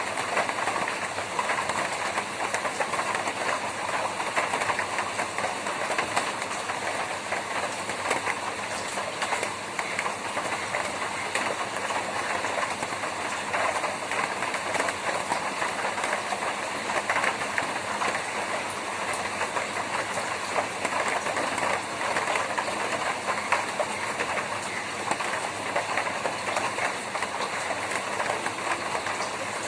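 Rain falling steadily on a tin roof: a dense, even patter of many small drop impacts that holds at the same level throughout.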